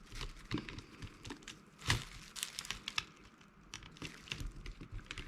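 Scattered plastic clicks and crackles from an old Sony Ericsson mobile phone being handled and pried at its casing, with one sharper click about two seconds in.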